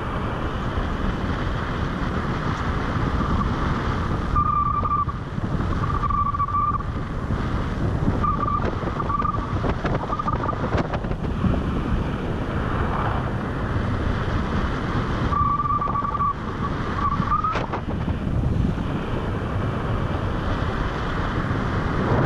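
Wind rushing and buffeting over the microphone during a tandem paraglider flight. Several runs of short high beeps sound through the wind, and one glides upward at the end of a run.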